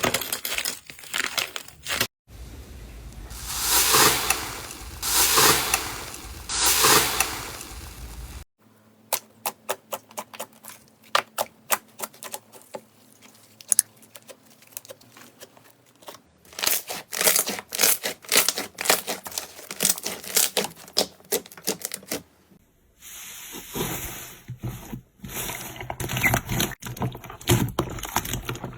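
Slime being squeezed, poked and stretched close to the microphone: dense crackling, popping and tearing sounds, broken into several short clips with sudden cuts between them.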